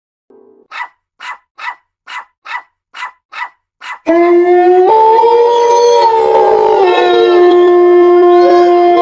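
A dog gives a quick run of eight short, sharp yips, evenly spaced at about two and a half a second. About four seconds in, a loud chorus of dogs howling cuts in abruptly: several long, held howls at steady pitches that shift a step now and then.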